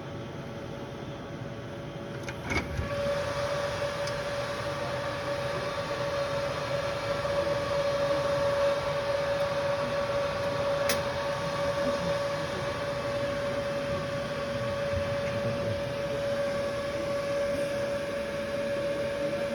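Steady electrical hum and whine of a KUKA KR C4 industrial robot system with its drives powered, growing louder after a click about two and a half seconds in, with one more sharp click near the middle.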